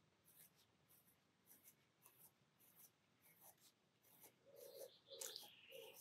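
Faint scratching of a gold gel pen on watercolour paper, short strokes repeating about twice a second as small scale-shaped marks are drawn. A few faint short sounds of another kind come near the end.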